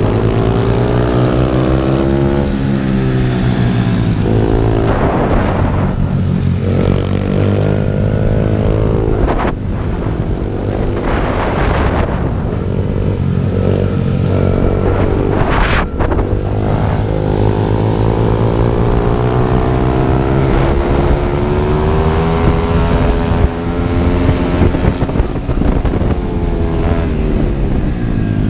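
Small single-cylinder pit bike engines heard from on board, revving up and down again and again as the bikes brake into and accelerate out of corners.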